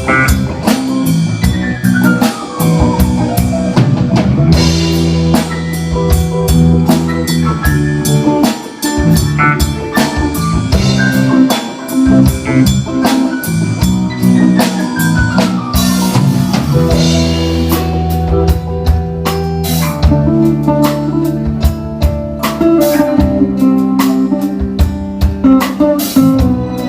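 Live band jamming: a drum kit keeping a steady beat under guitar, with sustained low notes and a few sliding, falling lines.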